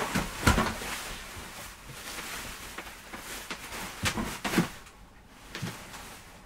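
Cardboard and bubble wrap rustling and scraping as a chair is pulled out of its box, with sharp knocks about half a second in and twice just after four seconds, then quieter handling.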